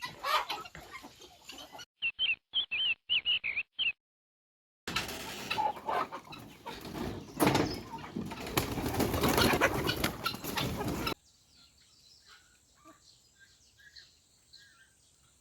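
Chickens in a series of short cuts: chicks peeping in clipped bursts, a brief gap, then a loud stretch of wings flapping and birds stirring that cuts off suddenly, followed by quieter scattered chirps and clucks.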